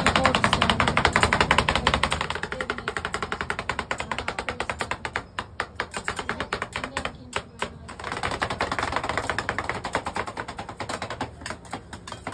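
Metal spatulas rapidly chopping and scraping ice cream on a rolled-ice-cream cold plate: a fast clatter of metal on metal. It slows and breaks up about five seconds in, then picks up again.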